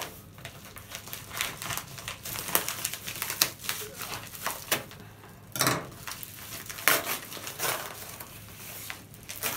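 Yellow paper padded mailer being torn open and handled: irregular crinkling of the paper, with sharper loud crackles about five and a half and seven seconds in.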